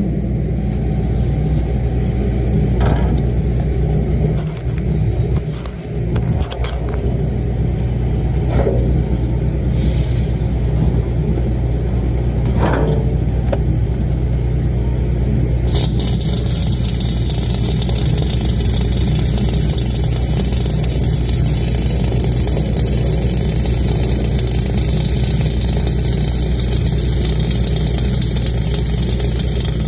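An engine running steadily at an even speed. About halfway through, a steady high hiss starts suddenly and joins it.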